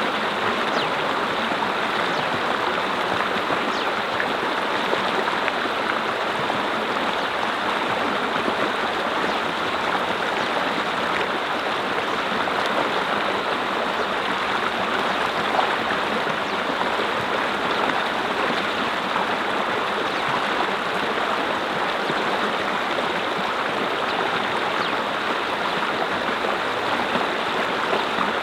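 Mountain brook flowing steadily, water rushing and splashing over rocks.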